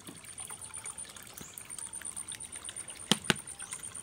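Water trickling and splashing steadily in a koi pond. Two sharp clicks a fraction of a second apart about three seconds in.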